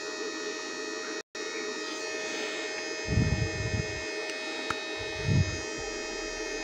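Steady electrical hum with several high steady tones over it. Low dull thumps come about three seconds in and again about five seconds in.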